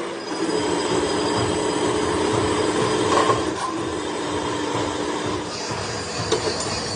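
Drill press running, its bit cutting into a steel differential case with a steady hum and a scraping cutting noise; the hum drops in pitch about three and a half seconds in.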